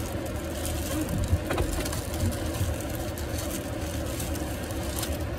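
Steady low rumble of a car heard from inside the cabin, with a brief knock or two about a second and a half in.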